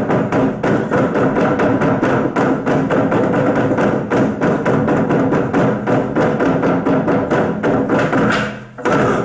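Fast percussion music with a dense run of sharp wooden clacks and drum hits over a few held notes, accompanying a stage stick fight. The rhythm breaks off about eight and a half seconds in, with one more loud hit near the end.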